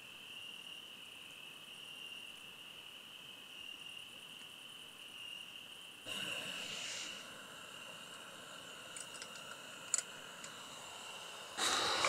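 Crickets chirping steadily in a high, continuous pulsing trill. There is a brief rustle about halfway through, a sharp click a little later, and a louder rustle at the end.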